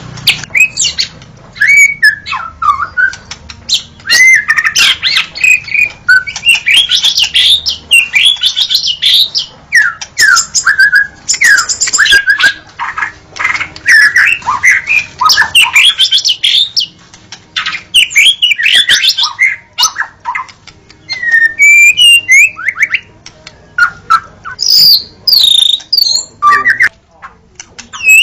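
White-rumped shama (murai batu) singing loudly in full song: a fast, varied stream of short whistled phrases, glides and sharp chirps, broken by brief pauses.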